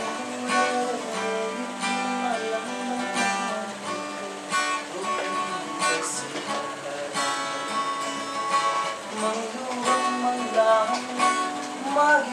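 Acoustic guitar being strummed in a steady accompaniment, with a man's singing voice joining near the end.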